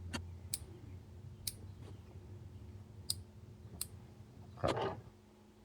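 Light, sharp clicks of plastic trim and an electrical connector being handled at a car's seatbelt pretensioner, spaced irregularly, with one louder brief scrape near the end.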